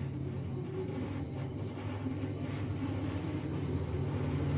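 Steady low mechanical hum, like a motor or fan running, with a few faint ticks.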